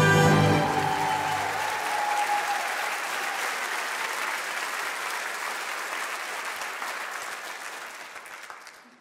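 An audience applauding in a large hall. Over the first couple of seconds an orchestra's final chord dies away. The applause then fades out near the end.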